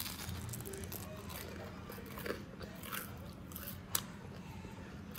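Crisp crunching and crackling of a toasted tuna melt sandwich, with a few sharper crunches in the middle and near the end.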